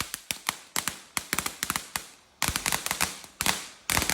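Consumer fireworks going off: rapid, irregular crackling pops in clusters about a second long, with short pauses between them.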